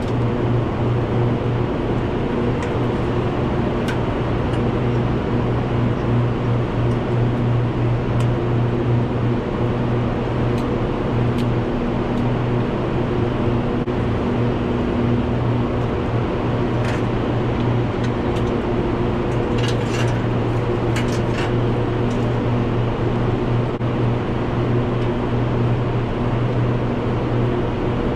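Tractor engine running at a steady speed, a constant drone, with a few faint clicks about two-thirds of the way through.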